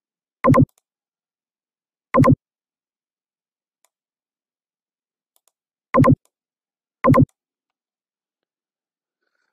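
Four sharp computer mouse clicks, irregularly spaced, each a quick double tick, with near silence between them.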